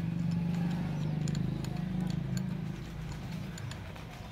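Small, scattered metal clicks and taps as fingers work the blade and its fixing nuts loose in the drum of an electric hand planer, over a steady low hum.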